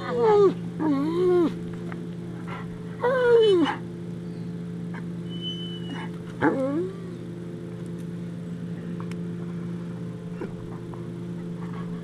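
Dog whining: four short cries that fall in pitch, two close together at the start, one about three seconds in and one about six and a half seconds in, over a steady low hum.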